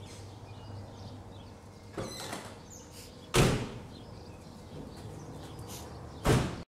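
A Peugeot 206's car doors slam shut twice, about three seconds apart, with a lighter knock about two seconds in.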